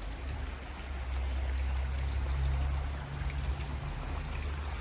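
Rushing water of the Əsrik river, a steady, even noise, with a low rumble underneath for the first three seconds or so.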